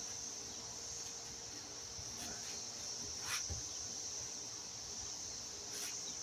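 Crickets trilling steadily in one continuous high-pitched drone, with a few brief rustles, the loudest a little over three seconds in.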